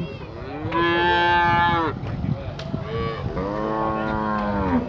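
Cattle mooing in the pens: two long calls, the first and louder one about a second in, the second lower-pitched near the end.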